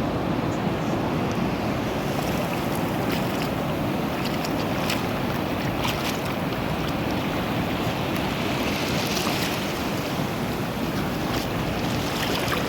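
Sea waves washing with wind rushing on the microphone, a steady noisy roar with scattered small clicks and splashes.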